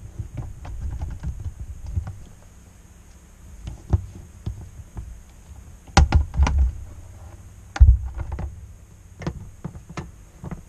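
Handling noises of a GW Instek benchtop function generator: its power cord being plugged into the back and the unit being moved and turned round on the bench, with scattered clicks and knocks and heavy thumps, the loudest about six and eight seconds in.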